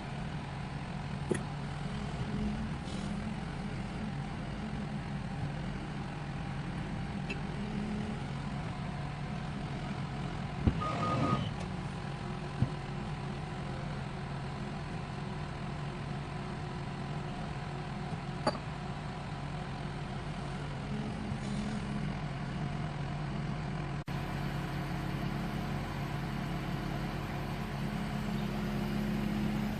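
Excavator's diesel engine running steadily, with a few sharp clicks or knocks now and then and one brief louder noisy burst about a third of the way in.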